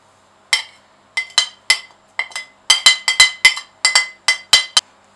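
A metal utensil tapping and knocking against a ceramic plate, about fifteen sharp clinks in an irregular run, each with a short ring, as lemon zest is knocked off the plate.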